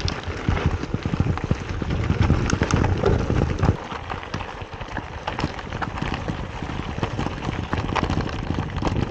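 Mountain bike tyres crunching over loose gravel, with a steady stream of small rattles and knocks from the bike heard through the handlebar-mounted camera. Louder for the first few seconds, then a little quieter.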